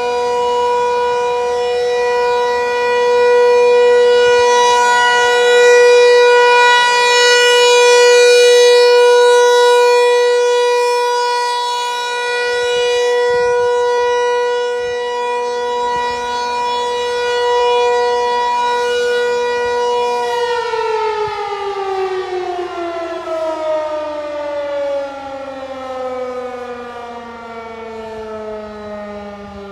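Federal Signal 508 outdoor warning siren sounding a steady, loud tone on its monthly test. About twenty seconds in, the tone stops holding and falls steadily in pitch as the siren winds down, growing quieter.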